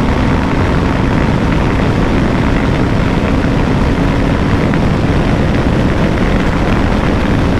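KTM 390 Adventure's single-cylinder engine held at high revs in sixth gear at around 150–160 km/h, steady, under heavy wind rush over the microphone.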